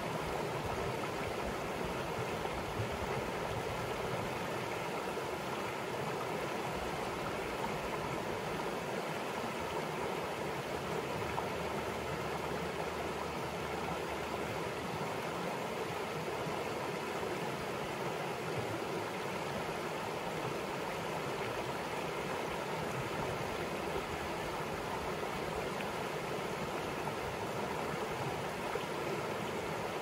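River water rushing steadily over rocks in a shallow rapid and small waterfall, an even, unbroken rush.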